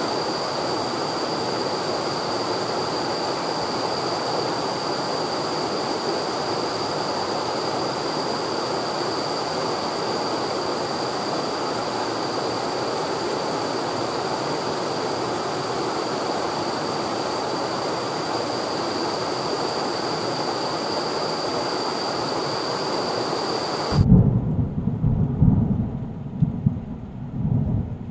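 A steady rush of falling water with a thin, steady high tone over it. About four seconds before the end it cuts off abruptly and loud, deep rumbles come in uneven surges.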